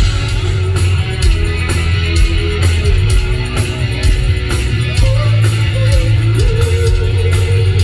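Loud rock music from a band: heavy bass, electric guitar and a steady drum beat with cymbals.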